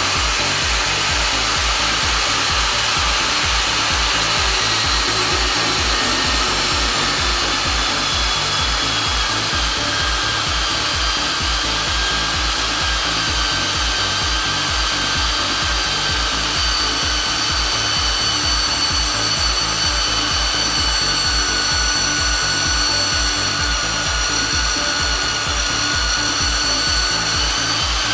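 Cayken SCY-38WSPM 1650 W magnetic base drill running under load, its annular cutter boring a 26 mm hole through steel plate. It is a steady, loud motor-and-cutting whine with a fast low pulse, its tones dropping slightly in pitch as the cut goes on.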